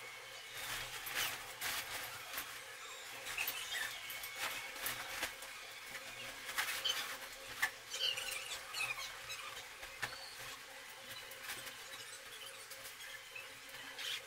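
Fabric cover of a collapsible steel-frame wardrobe being pulled down over the frame: faint rustling and scraping with scattered clicks and a few short squeaks.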